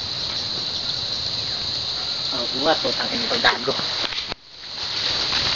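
Steady, high-pitched drone of insects in the grass and trees, with faint voices about halfway through. The sound drops out briefly near the end and fades back in.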